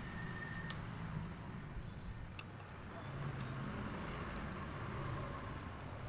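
A few sharp, scattered metallic clicks of two open-end spanners against a nut and bolt being tightened, over a steady low background rumble.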